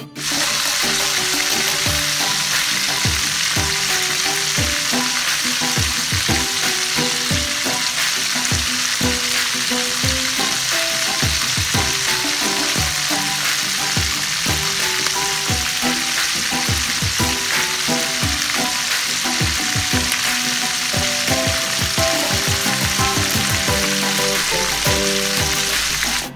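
Tanigue (Spanish mackerel) steaks frying in hot oil, a steady sizzle, with background music playing underneath.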